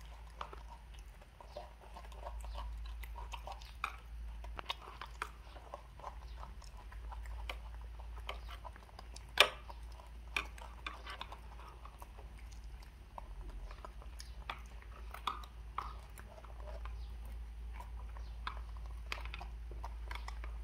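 Two monkeys eating fried rice: metal spoons clicking and scraping in plastic bowls, with chewing. One sharp click about halfway through is the loudest.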